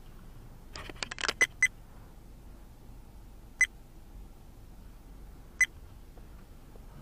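Low steady hum of a car rolling slowly, heard from inside the car. About a second in there is a brief rattle of clicks. After it come short, sharp high beeps, two close together and then single beeps about every two seconds.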